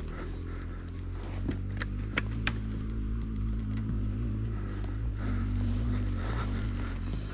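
Suzuki motocross bike's engine idling steadily, with a few sharp clicks about two seconds in.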